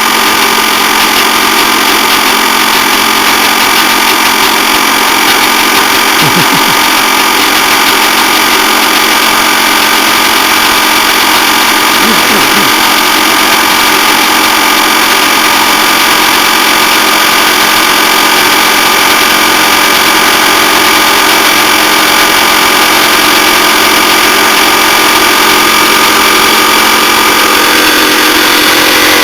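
Rotary compressor of a crushed, worn-out TECO window air conditioner running with a steady, loud mechanical hum. It has been freed from a locked-up state by blows and is pumping air through a torn-open condenser coil.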